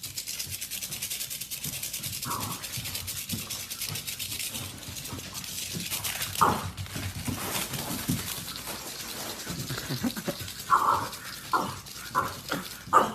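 A dog: a steady hiss throughout, with short sharp sounds about two seconds in, about six seconds in, and several more in quick succession near the end.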